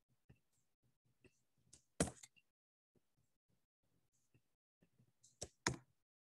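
Faint clicks of a computer mouse and keyboard as on-screen text is edited: a few light scattered clicks, a sharper click about two seconds in and two more close together near the end.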